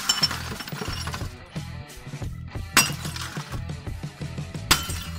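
Sledgehammer striking the glass screen of a TV, two blows about two seconds apart, each with a crash of shattering, tinkling glass, over background music.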